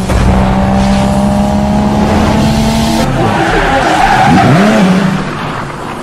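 Race car sound effect: an engine held at steady high revs, then tyres squealing and the engine pitch swooping up and down as the car slides sideways. It fades away over the last second.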